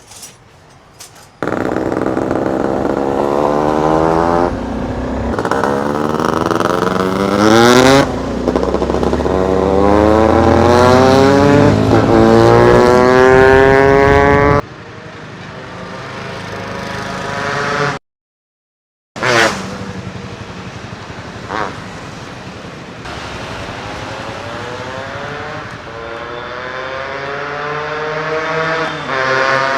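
Yamaha RX135 two-stroke single-cylinder engine with an open-cat silencer packed with ceramic glass wool, ridden hard on the road. The revs rise again and again, dropping back at each gear change, and the sound cuts out briefly about two-thirds in.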